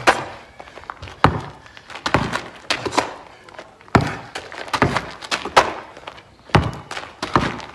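Basketball dribbled on asphalt: sharp bounces at an uneven pace of roughly one a second, through a between-the-legs dribble into a two-step pickup.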